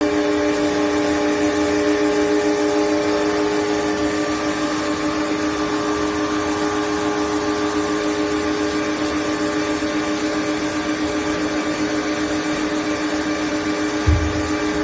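Large plastic-drum blow-moulding machine running: a steady machine drone with several held tones. A short low thump near the end.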